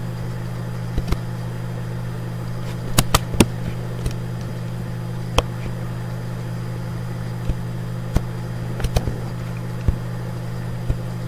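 Computer mouse clicking now and then while parts are placed and wired in circuit-design software, including a quick run of three clicks about three seconds in, over a steady low hum.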